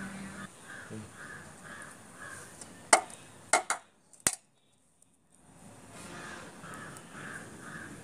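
A crow cawing in a steady series of short calls, about three a second. Near the middle come a few sharp knocks, then the sound cuts out for about a second before the cawing resumes.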